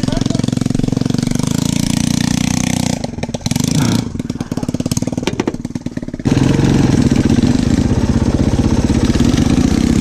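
Dirt bike engine running steadily, dropping to a quieter, choppier idle for a few seconds in the middle, then revving up louder about six seconds in as the bike pulls away.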